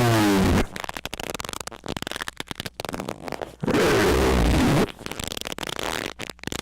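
Loud, heavily distorted squeaks in short bursts: one right at the start, another a little over a second long past the halfway point, with quieter crackling and clicking between them.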